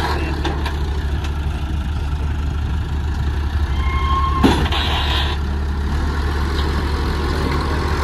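JCB 3CX backhoe loader's diesel engine running steadily as the front loader bucket is raised and tipped over a dump truck. About halfway through comes a thump followed by a short rush: the load of sand dropping into the truck bed.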